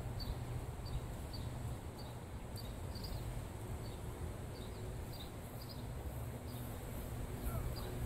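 Outdoor ambience: faint, high chirps repeating irregularly over a steady low rumble.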